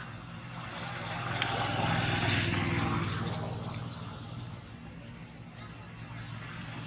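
Small birds chirping and twittering high over a low steady hum that swells about two seconds in.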